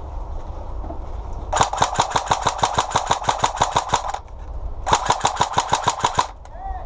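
Airsoft gun firing on full auto in two bursts, about nine shots a second: the first lasts about two and a half seconds, the second about a second and a half after a short pause.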